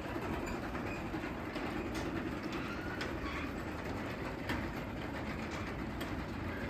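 Craftsman DC belt-drive garage door opener closing the garage door: a steady rumble and rattle of the door running down its tracks, with a few sharp clicks along the way.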